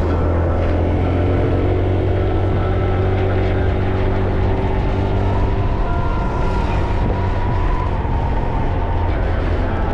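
Motor scooter engine running steadily while riding, a continuous low hum with road and wind noise.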